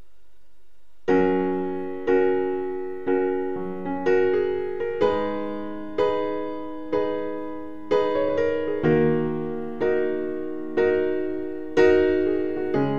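Slow piano music: chords struck about once a second, each left to fade, starting about a second in after a faint hum.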